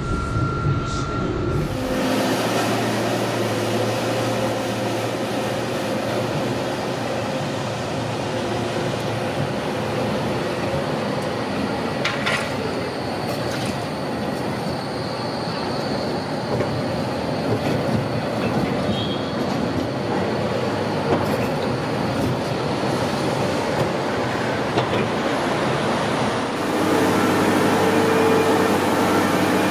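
Low-floor Cobra-type trams running over street track through a junction, a steady rumble of wheels on rail with a thin wheel squeal around the middle. The sound gets louder near the end as another tram approaches.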